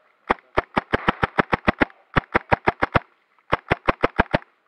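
KWA M11A1 gas blowback airsoft machine pistol firing rapid shots in three strings, about six shots a second: roughly ten, then five, then six, with short pauses between.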